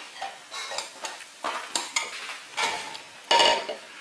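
Irregular scraping and clattering of utensils against cookware, several short strokes in a row, the loudest about three and a half seconds in.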